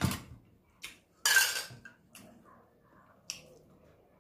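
Eating sounds close to the microphone: a few sharp clicks and mouth smacks, the loudest a short noisy burst about a second in.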